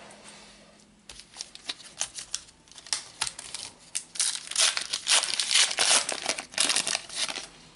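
Wrapper of a Panini Adrenalyn XL trading card pack being torn open and crinkled by hand, a dense crackling that starts about a second in and is loudest from about four to seven seconds in.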